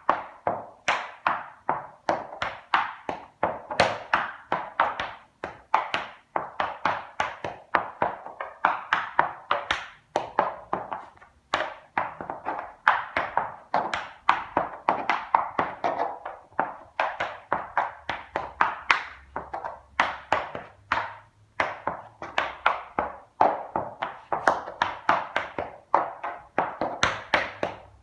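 Tap dancing in leather tap shoes: the metal toe and heel taps strike a wooden tap board in quick rhythmic clusters of sharp clicks, several a second and without pause.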